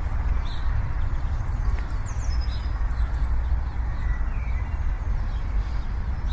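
Faint bird chirps over a steady low rumbling background noise.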